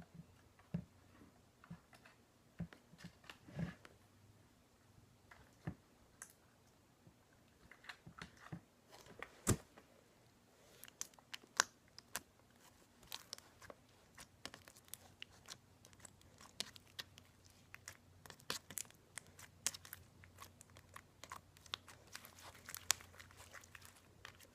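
Slime being stretched and poked by hand, giving irregular small sticky clicks, pops and crackles that grow busier in the second half.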